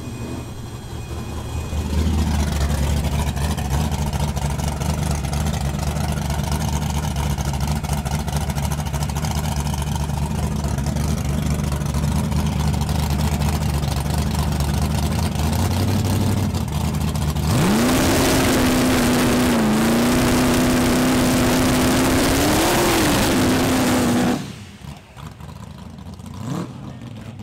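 A small-tire drag car's engine idling steadily, then suddenly revved up and held at high rpm for about seven seconds over the noise of spinning tyres in a burnout, with a brief dip and rise in revs before it cuts off sharply.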